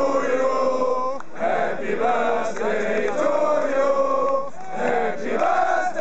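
A crowd of football supporters singing a chant together in unison, in long held notes with short breaks between lines.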